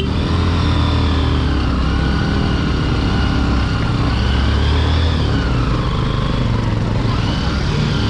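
Bajaj Pulsar NS motorcycle's single-cylinder engine running at low speed over a rocky track. Its pitch rises and falls slowly as the throttle is worked.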